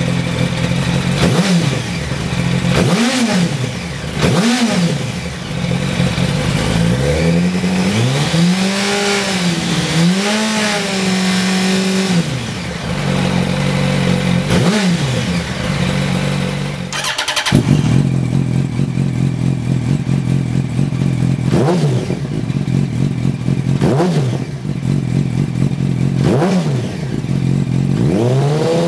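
A 2007 Yamaha YZF-R1's inline-four engine idles and is blipped repeatedly, with a few longer held revs, first through its standard twin underseat exhausts. After a cut about two-thirds of the way through, the same engine idles and revs through aftermarket Lextek GP8C carbon silencers, with three sharp blips and a rising rev near the end.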